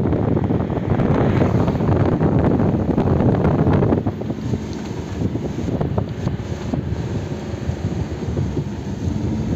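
Wind buffeting the microphone over the running noise of a moving vehicle. It is loudest for the first four seconds, then drops a little.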